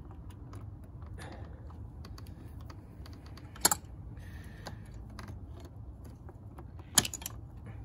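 Pliers clicking and tapping against a car battery terminal clamp as the bent clamp is worked back into shape so it will crimp tighter: a run of light ticks, with two sharper clinks, one about three and a half seconds in and one near the end.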